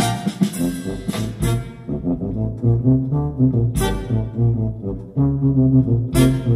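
Brass jazz music, a deep tuba-like bass line under horns with a sharp percussion hit about every two and a half seconds, played through the car's Zapco-amplified, EQ'd and time-aligned audio system and heard inside the cabin.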